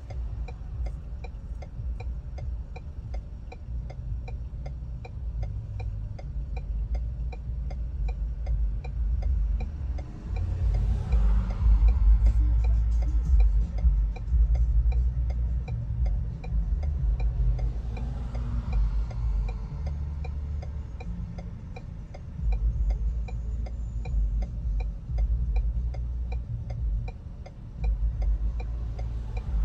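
Car road noise while driving: a steady low rumble of engine and tyres with a fine, even ticking over it, and two swells of passing traffic, about ten and eighteen seconds in.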